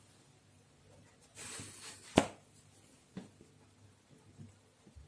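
Soft rustling of a plush blanket as a cocker spaniel shifts and noses about on it, with a sharp click about two seconds in and a fainter one a second later.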